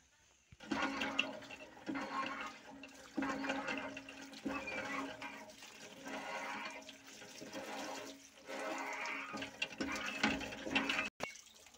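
Water pouring from a spout into a steel bowl of okra pods and splashing as hands rub and rinse the pods. It starts about half a second in and swells and dips as the pods are handled.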